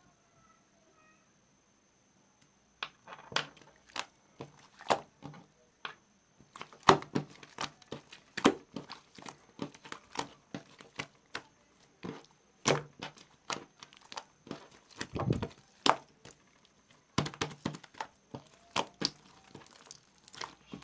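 Slime being squished and pressed by hand, making irregular sharp clicks and pops that start about three seconds in.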